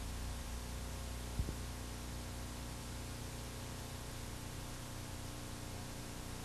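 Steady low electrical hum under an even hiss, with one brief low thump about one and a half seconds in.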